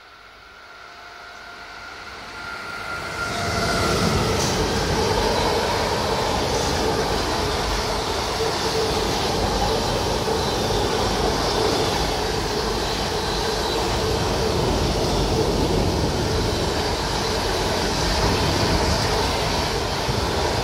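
Electric locomotive hauling a long container freight train, approaching with a faint whine and growing louder over the first few seconds, then a steady rumble and clatter as the loaded container wagons roll past.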